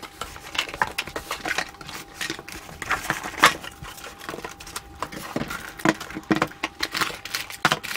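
Cardboard box flaps and foam packing being handled as a boxed NAS unit is unpacked: irregular rustles, scrapes and light knocks of card and foam, with the sharpest knock about three and a half seconds in.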